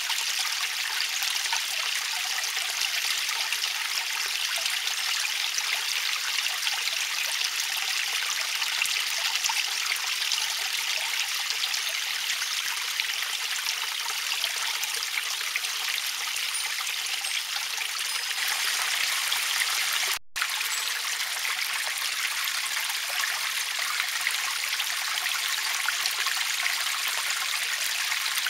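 Small garden stream trickling and splashing over stones, a steady, even rush of water, broken by a momentary dropout about twenty seconds in.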